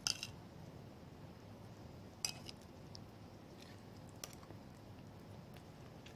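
Cutlery clinking against a plate three times, at the start, about two seconds in and about four seconds in, as food is mixed and scooped.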